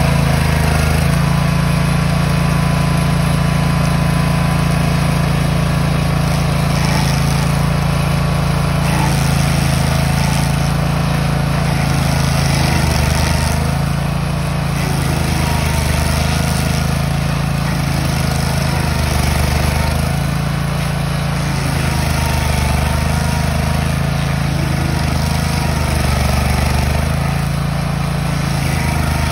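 Tracked stump grinder's engine running steadily at work while its cutter wheel grinds into a tree stump. The engine note swells and dips slightly as the wheel is swept across the stump.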